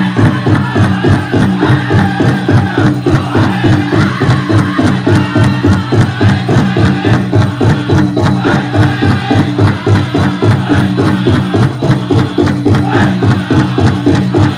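Powwow drum group playing a chicken dance song: a fast, steady beat on a big powwow drum under chanting voices.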